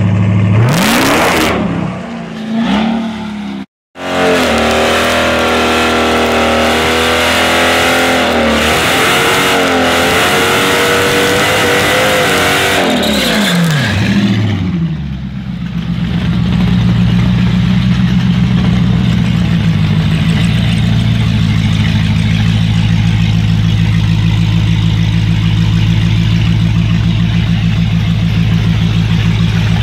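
Supercharged Dodge Challenger Hellcat V8: revs rise and are cut back in the first couple of seconds, an aborted launch. Then comes a burnout, the engine held at high revs with wavering pitch and the rear tyres spinning for about ten seconds. Around the middle it drops to a steady idle for the rest.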